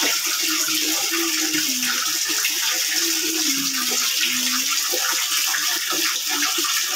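Water running from a wall tap into a plastic bucket: a steady splashing hiss.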